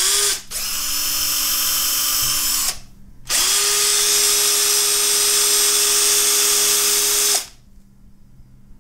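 Cordless drill-driver motors running unloaded, likely the two compared: a short blip, a run of about two seconds, a brief pause, then a longer run of about four seconds at a higher pitch. Each run opens with a rising whine as the motor spins up, then holds steady, and the sound stops about seven seconds in.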